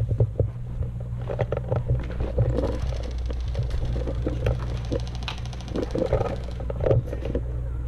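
Scattered knocks and rattles from a player moving on foot with an airsoft rifle, over a steady low rumble. A stretch of fast, even ticking runs from about three to five and a half seconds in.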